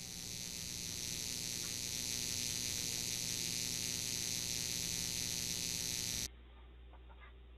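Hybrid VCV Rack and Eurorack modular synth patch putting out a steady high hiss of noise over a low hum. The sound cuts off suddenly about six seconds in, leaving only a faint hum and a few soft clicks.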